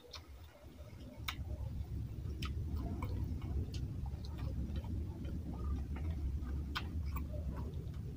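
Close-miked eating by hand: scattered wet clicks and smacks from chewing and from fingers mixing rice into fish curry. A low steady rumble sets in about a second in.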